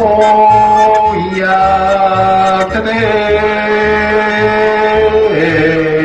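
Stone-roasted sweet potato vendor's call jingle: a slow tune of long held notes over a stepping bass line and a low pulsing beat.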